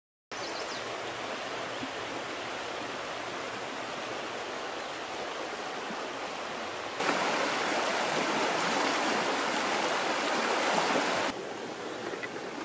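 Steady rush of flowing river water. It gets abruptly louder about seven seconds in, then drops back just as suddenly about four seconds later.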